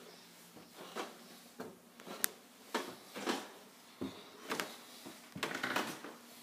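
Footsteps on bare wooden stairs: a string of uneven thuds and knocks, with one sharp click a little after two seconds.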